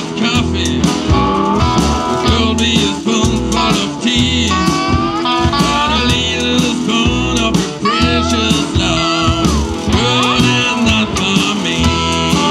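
Live electric blues band playing homemade cigar-box guitars over a drum kit beat, with sliding, bending guitar notes.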